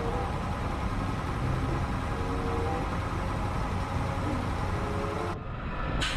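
Peterbilt concrete mixer truck's diesel engine running steadily as the truck drives along the road, with tyre and road noise; the sound changes a little after five seconds.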